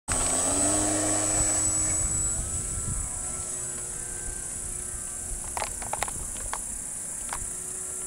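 Radio-controlled model airplane's motor and propeller running at take-off power, loudest for the first couple of seconds and then fading as the plane climbs away. Crickets chirp steadily underneath.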